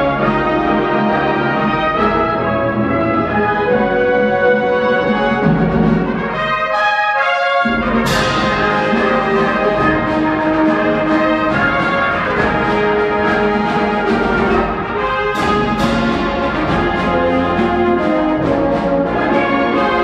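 Wind symphony playing loud, sustained chords led by brass: trombones, horns and trumpets. About a third of the way in, the low instruments drop out for a moment, then the full band comes back in with a sudden crash that rings on. Two more quick hits come about three-quarters of the way through.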